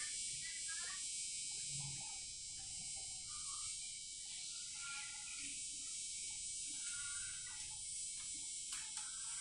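Steady background hiss with faint, scattered short sounds over it, and a couple of light clicks near the end.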